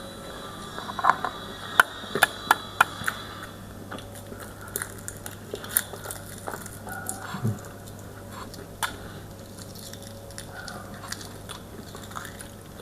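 A person eating: quiet chewing and mouth sounds, with a quick run of sharp clicks about two seconds in and scattered smaller clicks after that, over a low steady hum.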